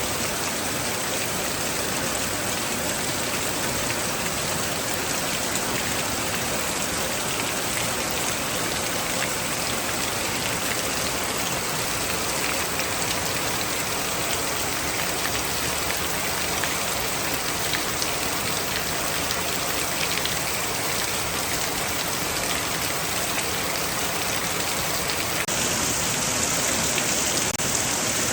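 Heavy rain falling steadily, a dense hiss with scattered drop ticks; it grows a little louder and brighter about three seconds before the end.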